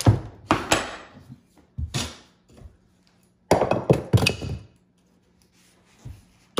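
A mallet knocking sharply on floorboards and tools during hardwood floor board removal, in irregular groups: a few blows near the start, one about two seconds in, and a quick run of several about three and a half seconds in.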